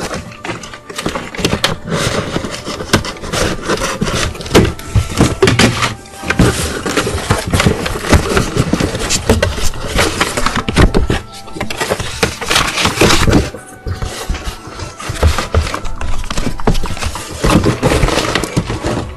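A cardboard shipping box being ripped open by hand: tearing, crackling and rustling of cardboard and packing, with bumps as the box is handled, in dense spells broken by a few short pauses.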